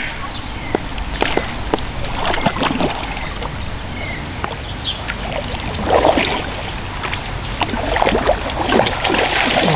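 Water splashing and sloshing as a hooked mirror carp thrashes at the surface while it is played in on a rod, with the biggest splashes about six seconds in and near the end.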